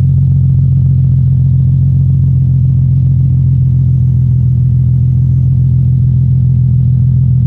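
VQ35 V6 engine idling steadily through a Z1 Motorsports pipe-back dual exhaust with its silencers removed, giving a loud, even, deep drone.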